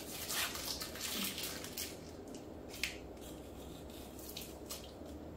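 Chewing a crispy Princessa Longa wafer bar: a run of small crunches and crackles in the first couple of seconds, then a single sharp click nearly three seconds in, fading to quiet mouth sounds.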